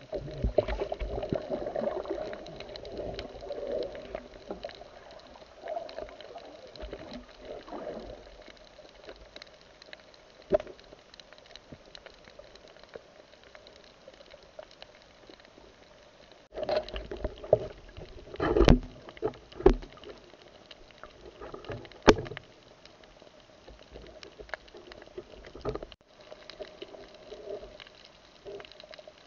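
Muffled underwater noise from a submerged camera: water movement around the housing with scattered knocks and sharp clicks, the loudest cluster about two-thirds of the way through.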